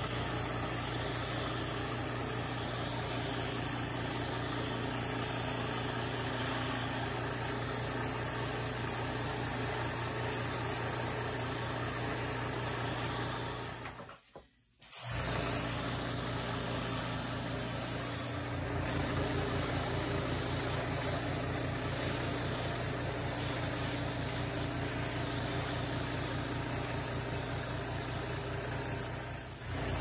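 Small airbrush compressor running steadily with a fast pulsing hum, under the hiss of the airbrush spraying paint. The sound drops out for about a second near the middle, then carries on.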